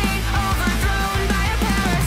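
Music: an instrumental stretch of a rock-style song, with guitar over a steady low bass.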